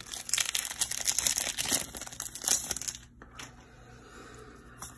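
A foil Pokémon TCG booster pack wrapper being torn open in the hands, crinkling and crackling densely for about three seconds before the handling noise dies down.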